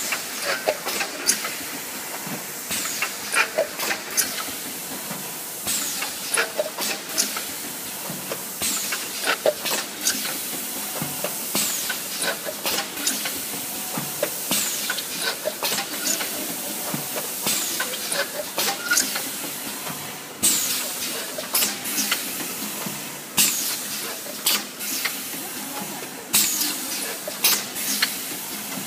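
Four-lane pneumatic cup filling and sealing machine running: a steady hiss of compressed air with sharp clicks and clacks from its cylinders and mechanism, about one every second or two, some followed by a short falling puff of air.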